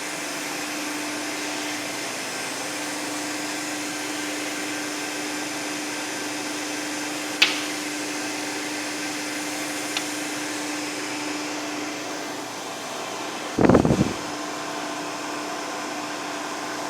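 CNC machine running with a steady whooshing noise and a steady hum. There is a sharp click about seven seconds in and a short, heavier burst of noise about fourteen seconds in.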